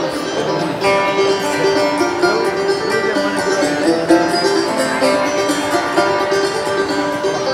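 Clawhammer banjo and acoustic guitar playing together live, a fast stream of bright plucked notes, heard through the venue's sound system from out in the audience.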